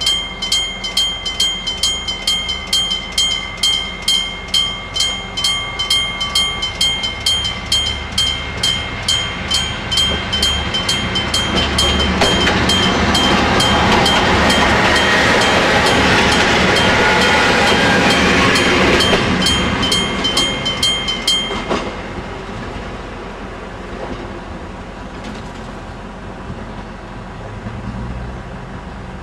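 Japanese striker-type electric bell level-crossing alarm ringing with rapid, even strikes, about two or three a second, while a train runs over the crossing and rises to the loudest sound in the middle. The bell stops about two-thirds of the way through, leaving the train's lower rumble.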